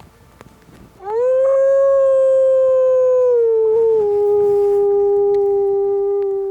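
One long wolf-style howl, close and loud: it swoops up at the start, holds steady, then steps down to a lower held pitch about halfway through and carries on past the end.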